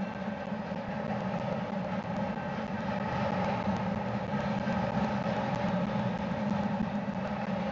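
Double-stack intermodal container train rolling past, a steady rumble of its well cars' steel wheels on the rails, growing a little louder about halfway through.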